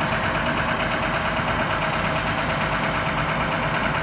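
Hitachi EX400H crawler excavator's diesel engine idling steadily, with a constant hum.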